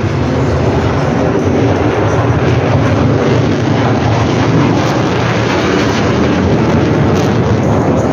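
A fighter jet flying overhead: loud, steady jet engine noise with no clear rise or fall.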